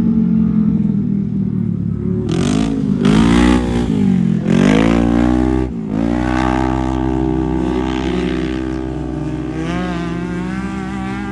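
Off-road race vehicle engine revving hard, its pitch rising and falling several times about two seconds in and cutting briefly near the middle, then holding a steadier pitch as it slowly fades.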